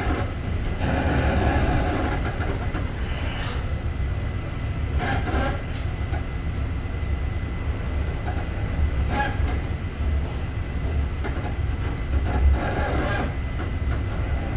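New York City subway train running along the track, heard from inside the car: a steady low rumble with bursts of wheel clatter over rail joints every few seconds.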